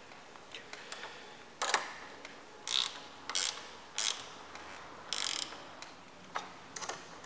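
Hand ratchet tightening the awning's holding-bracket fastener: short bursts of ratchet clicking, one for each swing of the handle, about once a second.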